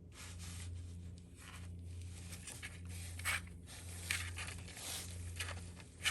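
Pet skunk making a run of short, irregular scratchy noises, with a low steady hum beneath.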